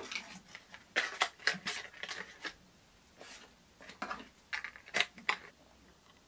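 Hands handling cardboard boxes and plastic packets of nail supplies: clusters of light taps, clicks and rustles, in two busier bursts about a second in and again about four seconds in.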